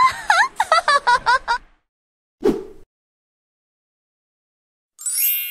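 A high-pitched cartoon giggle sound effect: a rapid run of squeaky chirps lasting about a second and a half. A short pop follows, then a pause, and near the end a bright chime starts and rings on.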